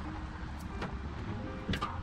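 Faint background music over low handling noise, with two light clicks, one a little under a second in and one near the end, as the ugly drum smoker's intake and lid are handled.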